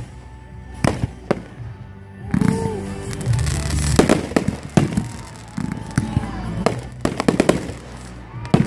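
Fireworks bursting: a series of sharp bangs and crackles, with a quick cluster of reports about seven seconds in.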